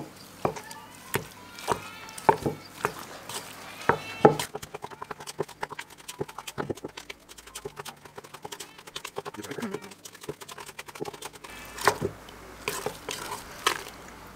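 Wooden spoon knocking and scraping against a stainless steel bowl as butter is mashed and worked: separate sharp knocks at first, a run of quick small clicks in the middle, then a few louder knocks near the end. A short animal call sounds in the background about three and a half seconds in.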